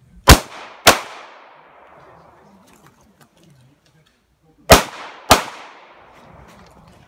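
Pistol shots fired as two quick pairs: two shots about half a second apart, then after a pause of nearly four seconds two more, each shot ringing out and dying away.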